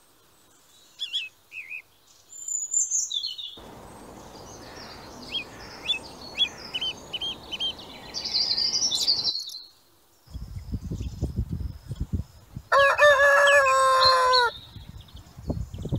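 Rooster crowing once, loud and long, falling in pitch at the end, about 13 seconds in; before it, scattered short high bird chirps and a stretch of low rumbling noise.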